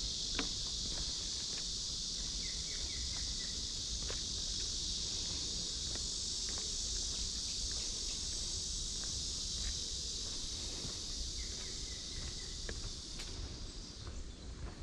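A chorus of cicadas buzzing in one steady, high-pitched drone that eases off a little near the end, over faint footsteps on a path.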